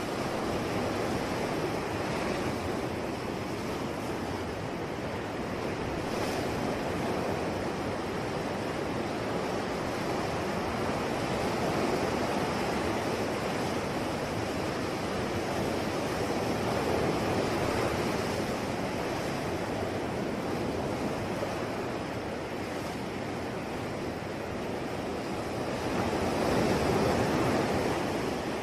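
Ocean waves washing onto a shore, a continuous surf rush that swells and eases in slow surges, with the swells loudest near the end.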